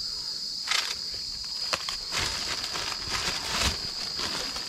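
Cicadas buzzing in a steady high drone, with a person's footsteps sounding a few times over it.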